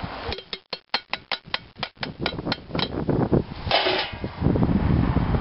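Mice jumping inside a feed bin, each landing against the bin making a sharp tap, in a quick series of about four taps a second. Near the end comes a brief scraping rustle.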